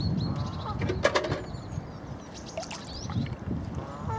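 Wind buffeting the microphone in uneven gusts, with small birds chirping and calling over it. A short rattle of clicks about a second in.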